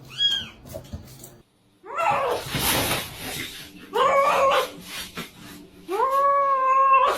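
A dog howling and whining in several calls, ending in a long, level howl of about a second near the end.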